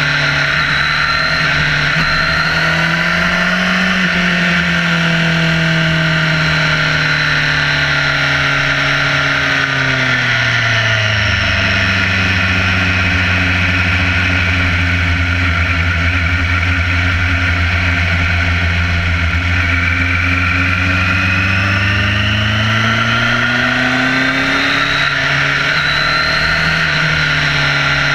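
Sport motorcycle engine heard from a camera mounted on the fairing, under steady wind and road noise. Its pitch drops about ten seconds in, holds low and steady for some ten seconds, then climbs again near the end as the bike speeds up.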